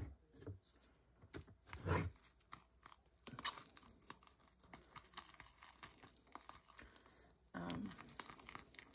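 Thick spackle-based texture paste being stirred together with acrylic paint in a plastic tub: soft, irregular scraping and squishing of the stiff paste against the tub wall, with a dull thud about two seconds in.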